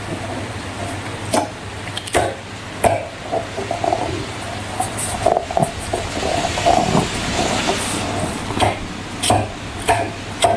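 Slime being squished and worked by hand, with irregular wet clicks and crackly squelches over a steady low hum.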